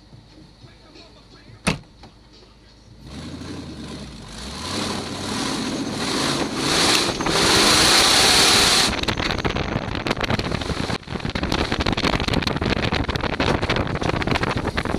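Supercharged Toyota 2UZ-FE V8 of a lifted pickup. A sharp knock comes about two seconds in, then about a second later the engine comes up and revs hard as the truck pulls away and accelerates, loudest around eight seconds. From about nine seconds on, wind buffets the microphone over the running engine.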